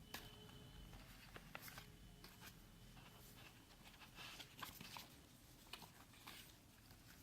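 Faint handling noises from unboxing a phone: scattered light rustles and clicks from the packaging and handset, at a very low level.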